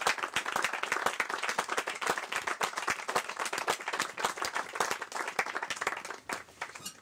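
A small crowd clapping by hand, steady and dense at first, then thinning to a few scattered claps and stopping near the end.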